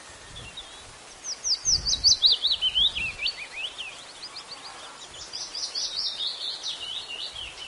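A songbird singing in quick runs of high chirps that slide downward in pitch, one starting about a second in and another from about the middle on.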